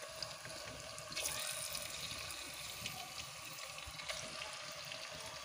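Boneless chicken pieces sizzling in a little hot oil in a non-stick pot, a steady hiss with small crackles that grows a little louder about a second in.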